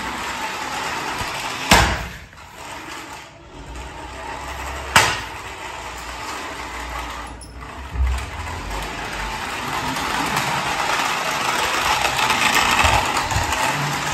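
Battery-powered remote-control toy quad bike driving across a tiled floor, its small electric motor and plastic gears whirring steadily. Sharp knocks come about two seconds in and again about five seconds in, with a softer thump near eight seconds.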